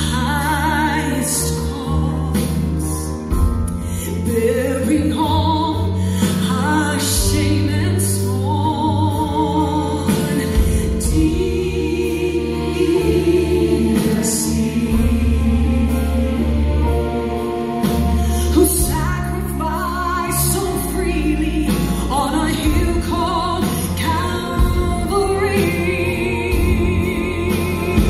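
A church choir and a solo voice singing a Christmas song over instrumental accompaniment, with sustained bass notes beneath; a high, wavering vocal line with vibrato stands out near the end.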